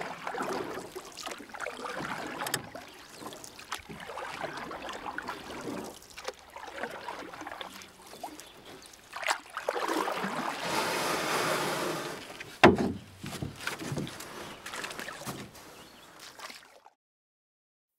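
Water sloshing and splashing unevenly, with a few sharp knocks, the loudest about two-thirds of the way through; it stops shortly before the end.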